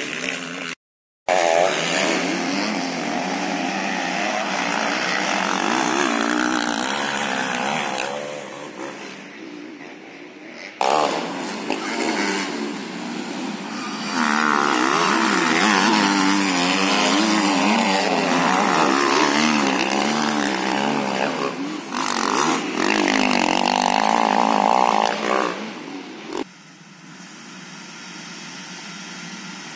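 Motocross motorcycle engines racing on a dirt track, several bikes revving up and down with wavering, rising and falling pitch. The sound drops out briefly about a second in and changes abruptly several times. Near the end it falls to a quieter, steady engine sound.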